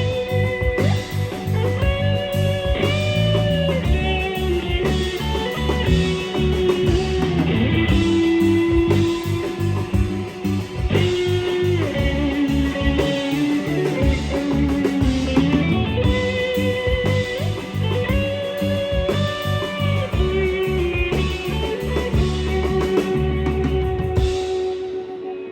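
Music: a guitar-led instrumental passage with a melodic lead line over bass and drums, fading down near the end.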